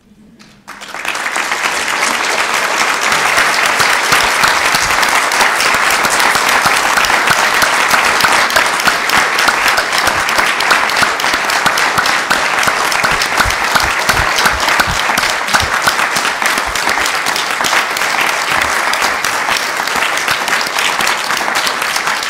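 Large audience applauding, the clapping starting about a second in and holding steady.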